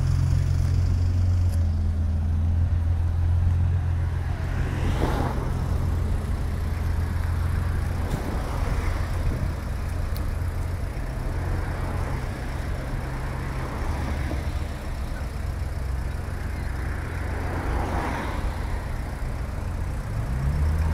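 Nissan 300ZX's V6 idling, a steady deep drone that is strongest in the first few seconds and fades somewhat after. Other traffic swells past about five seconds in and again near the end.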